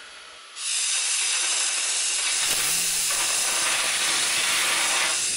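Compressed air hissing steadily, starting about half a second in, as it drives a fidget spinner packed with burning steel wool.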